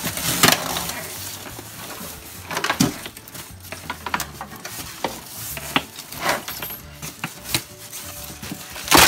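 Polystyrene foam packing blocks scraping and squeaking against plastic wrap, which crinkles as the foam is worked loose by hand. The rustling is irregular, with several louder scrapes.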